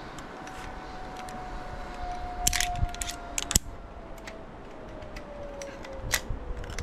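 Zipline trolley pulleys whining along the steel cable, the whine slowly falling in pitch, with a few sharp metallic clicks and rattles in the middle and again near the end.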